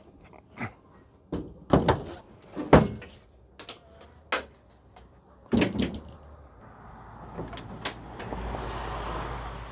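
The tailgate of a 2022 Ford F-150 Lightning, fitted with an aftermarket tailgate-assist damper, being tried out: a string of clunks and latch knocks, loudest about three seconds in. A steady rushing noise builds up over the last three seconds.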